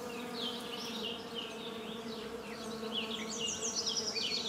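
Insect buzzing: a steady, even hum with many short, high, quick chirps over it that come thicker near the end.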